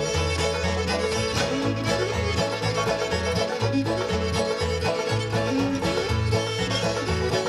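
Old-time string band playing an instrumental break: fiddle and banjo carrying the tune over guitar, with a bass line changing notes about twice a second.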